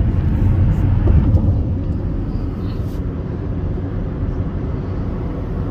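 Steady road and engine rumble heard inside a moving car's cabin at highway speed, a little louder for the first second or so.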